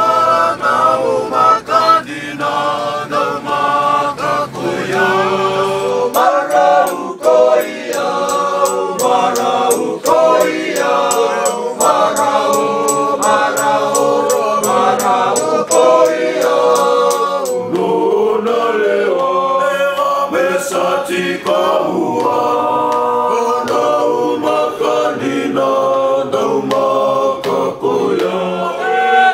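A group of young men singing together unaccompanied, in several-part harmony. The background changes abruptly about six seconds in and again after about seventeen seconds, as the singing cuts from one recording to another.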